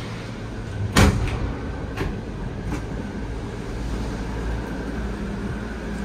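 Cable car cabin running slowly through its station with a steady low rumble, a sharp clunk about a second in and a lighter click a second later.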